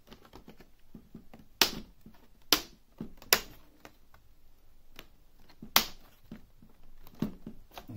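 The plastic screen bezel of a Dell Inspiron 15 5570 laptop is being pried off by hand, and its retaining clips snap loose as sharp clicks: four loud ones spread through the first six seconds, then a few fainter ones near the end.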